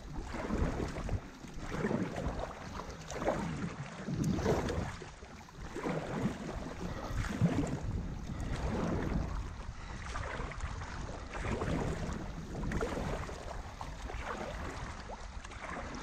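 Paddle strokes from two paddlers on a tandem inflatable stand-up paddleboard, the blades dipping and pulling through the water with splashing and water lapping at the board, about one stroke a second.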